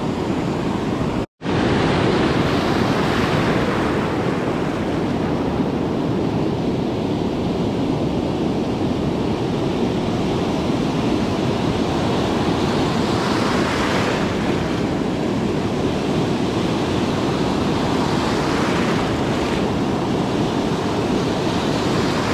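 Steady rush of ocean surf breaking and washing up the beach, with wind buffeting the microphone. Waves swell louder a couple of times in the second half, and the sound drops out completely for an instant about a second in.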